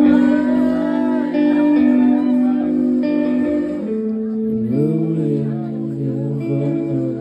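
Live band playing a song, recorded from within the crowd: sustained held chords with guitar, and a singer's vocal line that comes in lower about halfway through.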